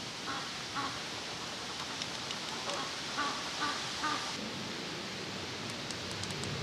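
Waterfowl calling, a run of short, faint calls over the first four seconds, over a steady hiss. A few light clicks near the end.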